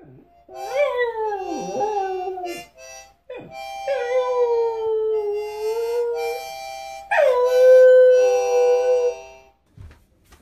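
A dog howling along to a harmonica: three long howls that slide up and down in pitch over steady harmonica chords.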